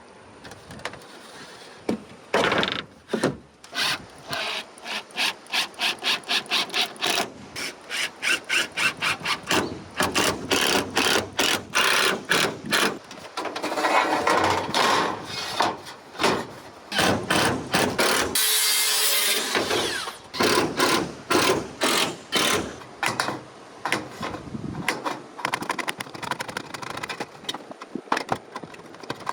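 Hand work on wood in repeated scraping, rubbing strokes, about two a second at times. There is a brief hiss about two-thirds of the way through.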